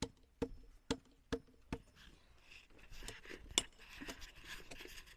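Hammer blows on timber, about two a second with a short ring after each, for the first two seconds. Then rustling and scattered clinks, with one sharp knock about three and a half seconds in.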